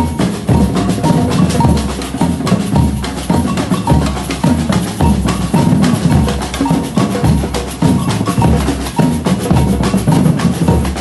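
Samba reggae drumming by a batucada percussion ensemble: deep surdo bass drums and snare drums playing a steady, dense rhythmic groove.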